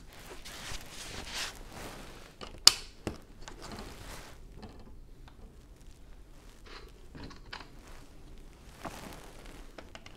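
Nylon puffer jacket rustling as the arm moves, with a sharp click of plastic Lego pieces about two and a half seconds in, a second click just after, and lighter taps and ticks of bricks handled on the table.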